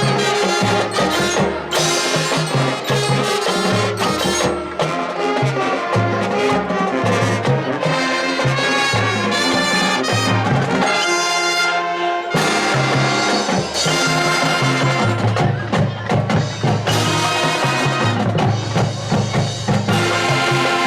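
High school marching band playing, with brass (trumpets and trombones) over a steady drumline beat.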